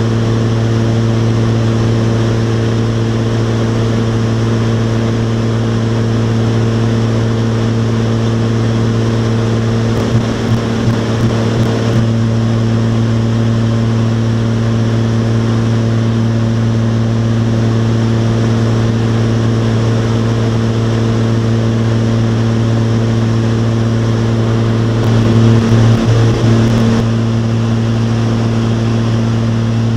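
Steady drone of a light twin-engine propeller aircraft's piston engines and propellers in cruise, heard inside the cabin as a constant low hum. There are a few faint clicks about ten seconds in and a brief, slightly louder rumble near twenty-five seconds.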